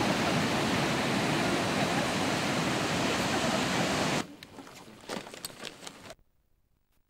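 Ocean surf breaking and washing in, a loud steady rush of water that cuts off suddenly about four seconds in. After it comes a much quieter indoor stretch with a few faint clicks, falling to near silence near the end.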